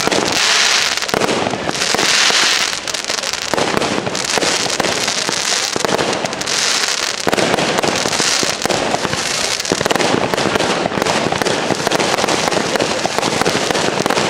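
Consumer firework cakes firing without pause: a dense run of launch pops and bangs, with surges of hiss every second or two during the first ten seconds.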